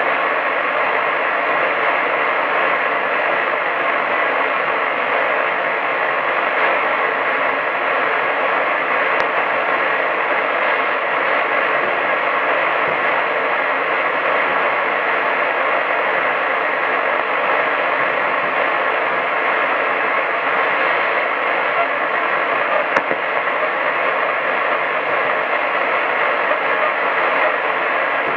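Medium-wave AM radio receiver giving only steady hiss and static, cut off above about 4 kHz, with no programme audible. One faint click comes near the end.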